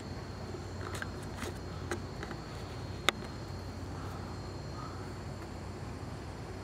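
Quiet background with a steady low hum, a few faint clicks, and one sharp click about three seconds in.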